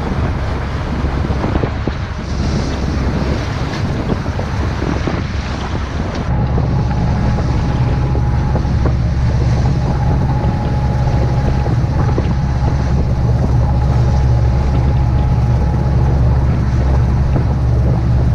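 Wind and waves rushing past a sailboat under way, with wind buffeting the microphone. About six seconds in, a cut brings a louder, steady low drone from the boat's engine.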